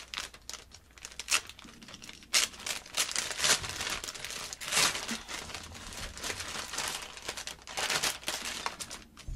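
Packaging crinkling and rustling as it is pulled and torn open by hand, in many irregular crackles.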